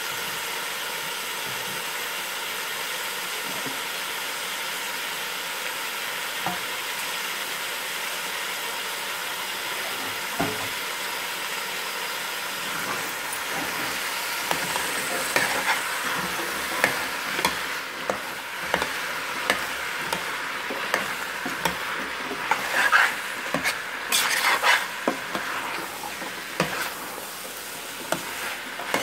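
Cubed carrots and potatoes sizzling in a stainless steel pot. From about halfway through, a metal spoon stirs them, scraping and clinking against the pot in quick irregular strokes.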